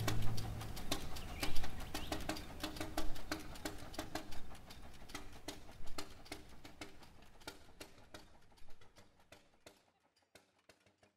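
Vintage steel-wheeled tractor's engine running, a rapid uneven train of exhaust knocks that fades away to silence near the end.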